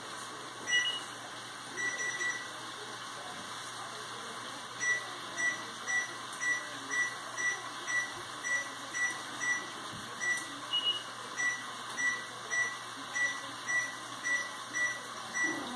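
Wall oven's electronic control panel beeping as its buttons are pressed to set it to 450 degrees. A few scattered short beeps come first, then a steady run of short beeps about twice a second, with a higher-pitched beep twice.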